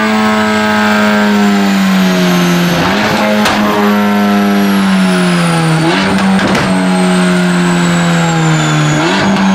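Mercedes-AMG GT Black Series twin-turbo flat-plane V8 with catless downpipes running on a chassis dyno, its note sagging steadily and then jumping back up with a short crack about every three seconds, three times, like downshifts as it slows through the gears. A thin high whine falls steadily underneath.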